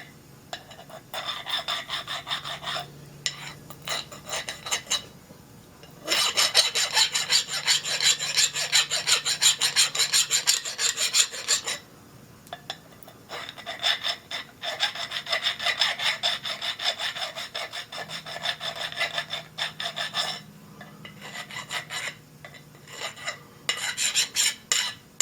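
Hand file stroking back and forth on a metal workpiece, taking the sharp point off a freshly cut tool-post dovetail. It comes in several runs of quick, even strokes with short pauses between them.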